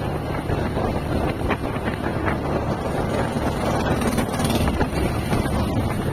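Steady engine drone and road noise of a vehicle in motion, with wind rushing over the microphone. A short rise in hiss about four seconds in.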